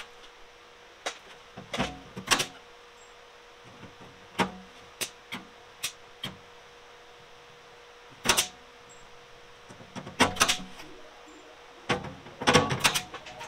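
Irregular sharp clicks and knocks of hand work on a thin aluminum diamond-plate box and its piano hinge, some single and some in short clusters, over a faint steady hum.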